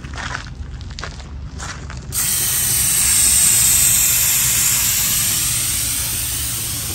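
Air hissing out through the valve of an Eicher 242 tractor's Goodyear rear tyre as it is deflated, starting suddenly about two seconds in after a few light clicks at the valve and slowly easing off.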